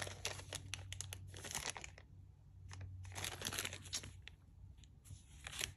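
Small clear plastic zip-lock bags crinkling as they are handled, a run of soft crackles that goes quiet about two seconds in and picks up again a second later.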